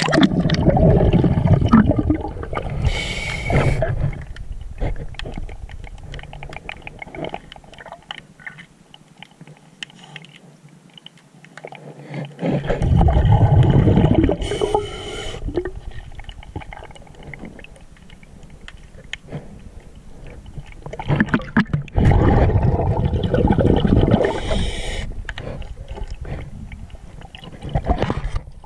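Underwater sound, muffled through a camera housing: a scuba diver's breathing. There are three gurgling, rumbling surges of exhaled bubbles about ten seconds apart, each with a short hiss, and quieter water noise between them.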